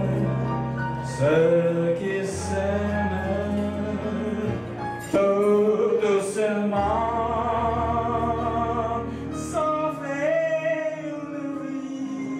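A man singing into a handheld microphone, holding long notes with a wavering vibrato, over an accompaniment of sustained bass notes and chords.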